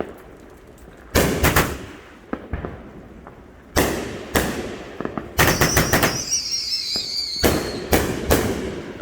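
Consumer fireworks going off: a series of loud bangs in groups, with a rapid string of reports a little past the middle. Over that a whistle glides slowly downward for almost two seconds.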